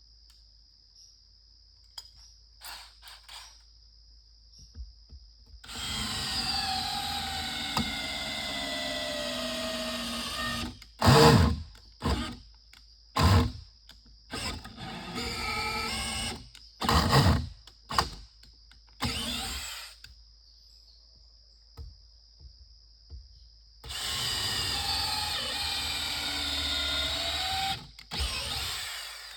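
Handheld electric drill running into wood in three long runs of a few seconds and several short bursts, its motor pitch sagging and recovering under load. A steady high insect trill sounds throughout.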